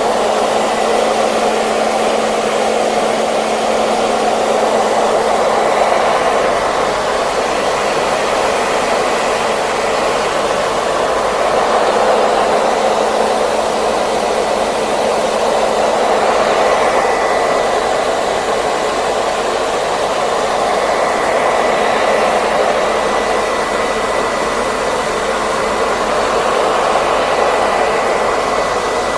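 Hair dryer running steadily: a constant rush of blown air with a faint high whine, swelling and easing slightly every few seconds.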